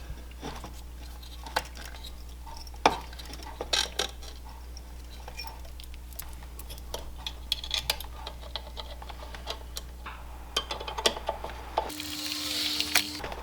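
Scattered small clicks and light taps of plastic and metal parts being handled as a fuel pump is seated in its housing and its connector plugged in, over a steady low hum. A brief hiss comes near the end.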